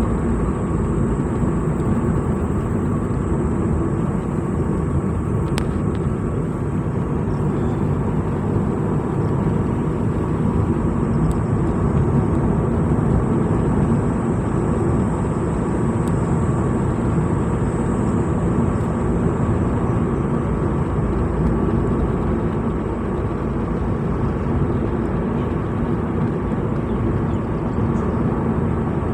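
Steady engine and road rumble of a vehicle driving along a road, unchanging throughout, with a faint steady high whine over it.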